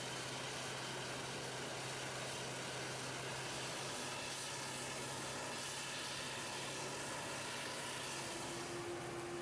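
Claas Jaguar 960 forage harvester chopping maize: the steady drone of its engine and chopper, with the tractor pulling the trailer alongside. A higher steady whine joins in near the end.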